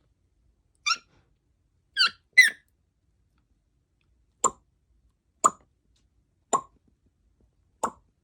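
African grey parrot making small noises: three short, high chirps in the first two and a half seconds, then four sharp clicking pops about a second apart.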